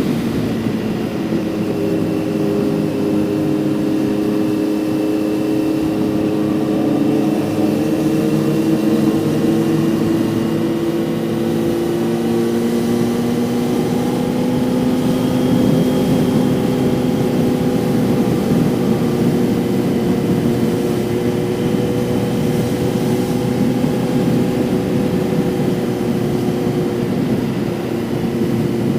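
Kawasaki Z900's inline-four engine running at a steady cruise, its pitch dipping slightly at first, rising gently about halfway through, then easing back a little.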